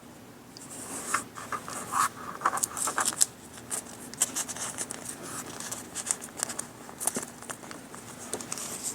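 Paper and plastic craft pieces being handled at a work table: crinkling, scratching and rustling with many small clicks and taps, starting about a second in.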